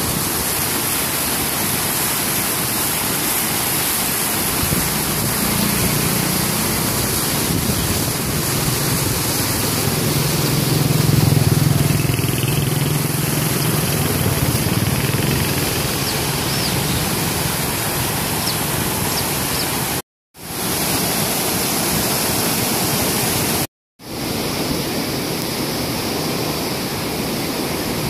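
Steady rush of fast-flowing, churning water in an irrigation canal. Over the middle a low engine hum swells and fades, like a passing motorbike, and the sound cuts out briefly twice near the end.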